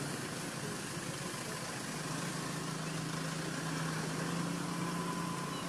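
Steady outdoor background noise with a low, steady motor hum that grows stronger about two seconds in.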